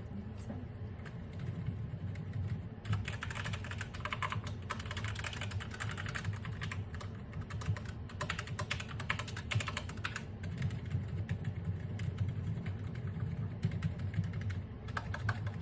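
Typing on a mechanical keyboard: a fast run of key clicks in the middle, with lighter, sparser keystrokes before and after.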